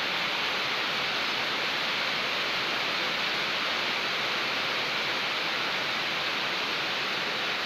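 Rain falling steadily, an even hiss that stays at one level throughout.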